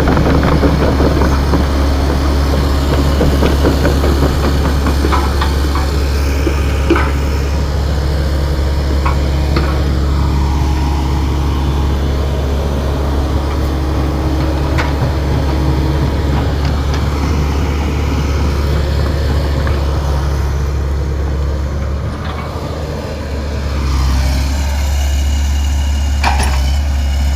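An engine idling steadily, with a brief drop in level about 22 seconds in before it picks up again.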